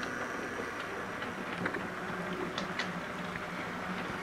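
Model railway locomotive, a model of the Flying Scotsman, running along the track: a steady low motor hum with scattered light clicks.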